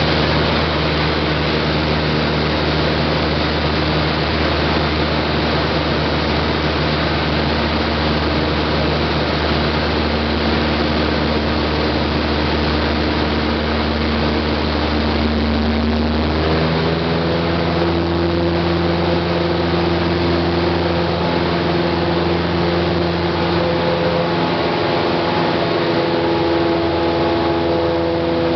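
Cessna 172's piston engine and propeller droning steadily, heard inside the cabin in cruise flight. A little past halfway the pitch of the drone steps up slightly.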